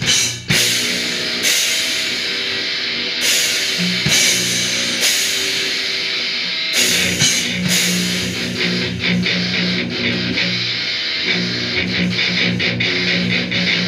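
A rock band playing live: distorted electric guitar through a Marshall amplifier stack, with drum kit and crash cymbals hitting every second or two in the first half and more busily later on.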